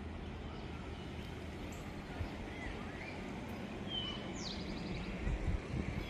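Outdoor ambience: a steady, quiet background hiss with a few faint bird chirps around the middle and a higher, quick bird call about four seconds in. A few low bumps come near the end.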